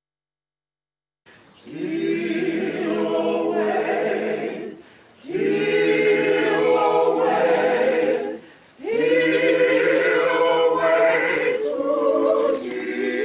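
A small mixed choir of men and women singing an African American spiritual a cappella, without instruments. The singing starts about a second in and moves in three long phrases, with a short break for breath between each.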